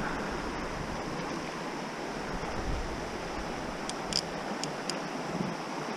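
Steady rush of a shallow river running over stones, with a few short high ticks a little after the middle.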